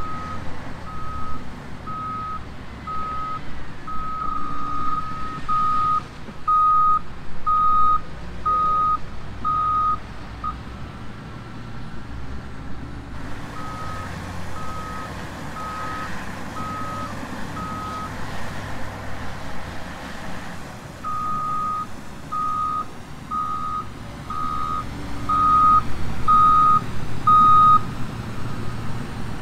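Backup alarm on heavy demolition equipment beeping a little more often than once a second. The beeping stops twice and comes back, louder in the last run, over a low engine rumble.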